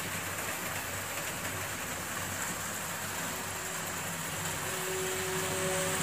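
Märklin H0 model trains running on the layout: a steady whirr of electric locomotive motors and metal wheels rolling on metal track.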